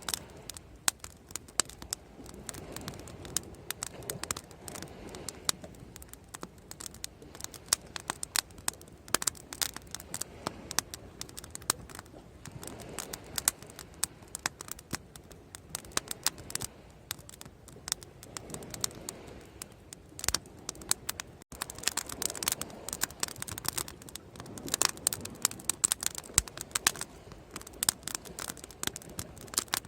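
Wood bonfire crackling: irregular sharp pops and snaps, several a second, over a soft low rush that swells and fades every few seconds.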